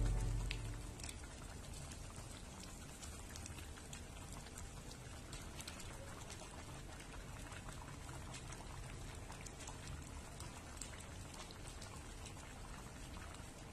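Liquid bubbling in a pan on the stove, a faint steady sizzle with many tiny pops. A music passage fades out in the first second.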